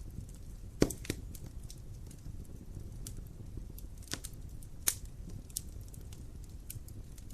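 Wood fire in a fireplace crackling, with irregular sharp pops and snaps over a low rumble of the burning logs; the loudest pops come about a second in and again about five seconds in.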